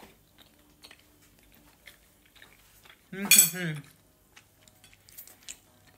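A fork or spoon tapping and clinking lightly against a plate while someone eats, with one short voiced exclamation about halfway through, the loudest sound here.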